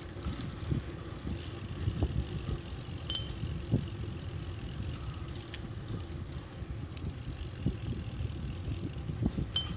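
Wind buffeting the microphone and the rumble of a bicycle rolling over an asphalt path, uneven and gusty, with scattered small knocks and rattles from the ride.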